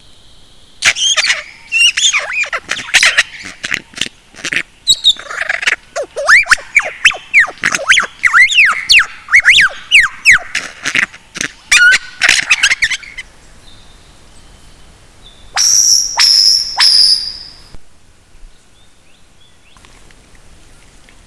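Lyrebird singing: a loud, rapid and varied run of sweeping whistles, trills and sharp clicks lasting about twelve seconds. After a short pause come a few loud, high ringing notes.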